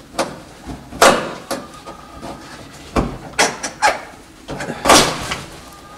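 Work on the old headliner and roof trim inside a 1965 Corvair's cabin: a string of irregular knocks, clacks and short scraping rustles as it is handled, the loudest about a second in and about five seconds in.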